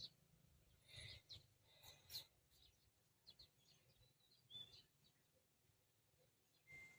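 Near silence: faint, scattered bird chirps and a few soft clicks.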